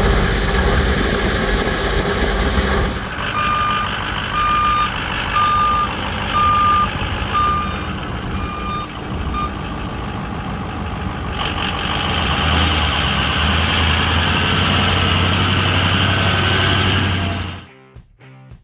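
An engine runs steadily under the drill rig for the first few seconds. Then a backup alarm beeps about once a second, seven times, over a running truck engine. Near the middle the engine grows louder with a slowly rising whine, and the sound cuts off just before the end.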